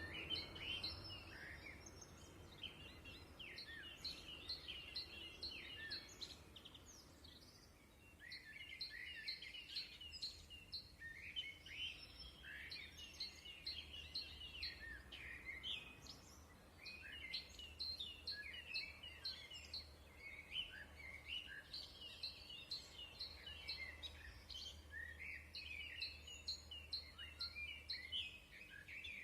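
Several small birds chirping and singing in a dense chorus of short, quick, high-pitched calls, briefly thinning out about eight seconds in. A faint low hum runs underneath.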